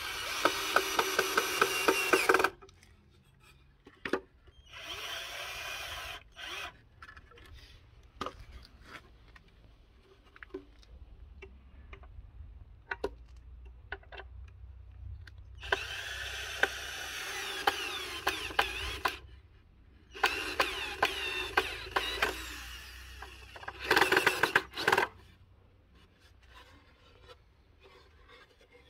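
Cordless drill-driver running in about five short bursts of one to three seconds as it bores and drives into the toolbox's soft pallet wood, with quieter handling sounds between the bursts. Rapid clicking runs through the first and last bursts.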